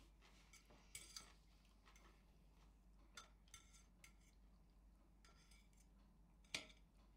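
Quiet room with a few faint, scattered clinks of a fork against a dinner plate, one louder near the end.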